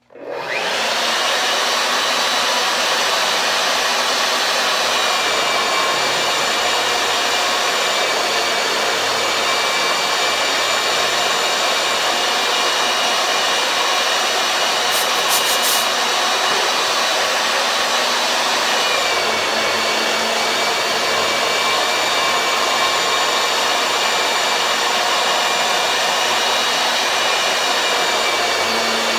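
Magnetic drill press motor starting suddenly and running steadily with a high whine while drilling a steel beam. About 19 seconds in its pitch drops slightly as the bit is fed into the steel under load.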